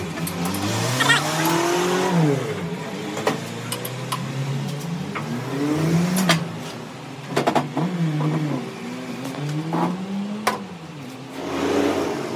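An engine revving up and down over and over, its pitch rising and falling every second or two, with a few sharp metallic clanks over it.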